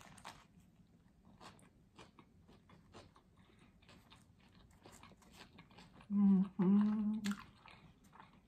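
Close-up chewing of a bite of a veggie sub sandwich (soft bread roll, lettuce, cucumber, bell pepper): faint, frequent wet clicks and crunches. About six seconds in comes a louder closed-mouth hum of enjoyment, "mm-mm", in two parts lasting about a second.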